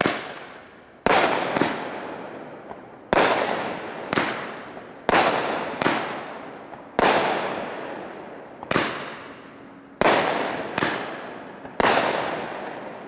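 Neon Dragon Blue aerial firework going off: about a dozen sharp bangs at irregular intervals of roughly a second, each trailing off in a long echo.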